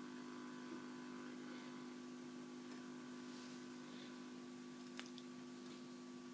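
HMV 475 valve radio's loudspeaker giving a steady low mains hum with faint hiss and a thin steady whistle while tuned between stations on the AM band. There is a faint click about five seconds in.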